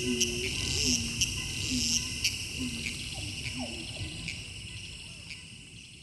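Rainforest evening ambience: a steady, high insect chorus with short, low calls repeating about once a second, fading out steadily toward silence.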